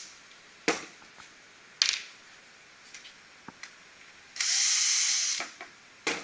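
A power driver with a Phillips bit runs in one burst of about a second, a little past the middle, backing out a handle screw. A few sharp clicks of the screws and parts being handled come before and after it.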